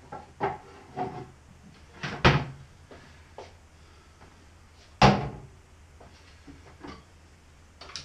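Knocks and clatters of kitchenware being taken out of a low kitchen cupboard, half a dozen separate bumps with the loudest, a sharp bang, about five seconds in.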